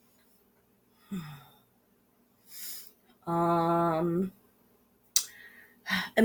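A woman's wordless vocal sounds: a short falling sigh, a breath, then a steady hummed "mmm" held for about a second, followed by a couple of breaths.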